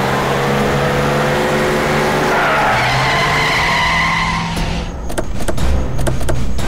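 A car driving up fast, its tyres squealing as it brakes to a stop. About five seconds in, dramatic background music with sharp drum hits takes over.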